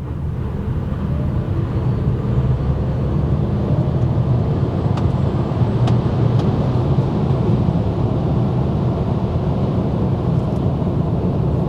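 Cabin noise of a Mercedes EQA 350 4Matic electric SUV accelerating hard from a standing start: a deep road and tyre rumble that builds over the first couple of seconds and then holds steady, with a few faint ticks in the middle.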